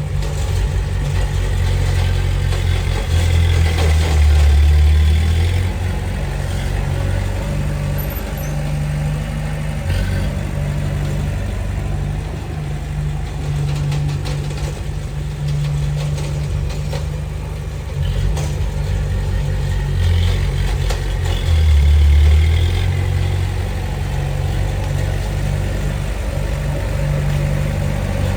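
Heavy diesel engine of earthmoving machinery running steadily, rising under load twice, first about three seconds in and again about twenty seconds in.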